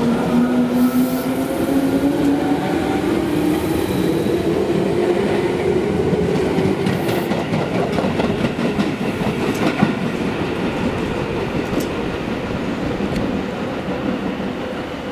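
Electric commuter train running past close by, its motors whining and rising in pitch over the first several seconds over the rumble of the wheels on the rails. The wheels click over the rail joints, and the sound fades near the end as the last car goes by.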